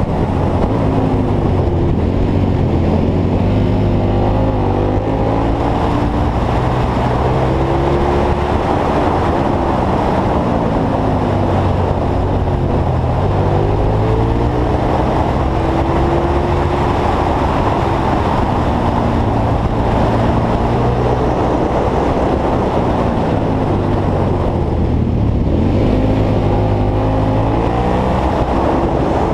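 Motorcycle V-twin engine ridden hard through bends, its note repeatedly rising and falling as the throttle opens and closes, with a deeper dip about 25 seconds in before it climbs again. Wind rushes over the microphone throughout.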